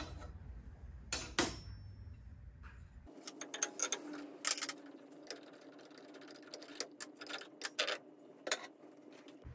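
Metal clicks and clinks as a SawStop table saw's blade is taken off: the arbor nut and washer are worked loose and the blade lifted off the arbor. Two sharp clicks come about a second in, then an irregular run of light ticks and clinks from about three seconds in.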